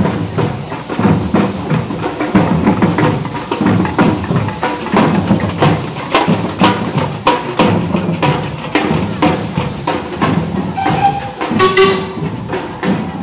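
Music with a steady percussive beat, with a brief high pitched note near the end.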